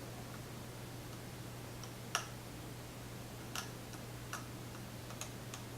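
Lock pick ticking against the pins inside a pin-tumbler lock: a handful of small, scattered clicks, the sharpest about two seconds in, over a steady low hum. None of the clicks comes across as a pin setting.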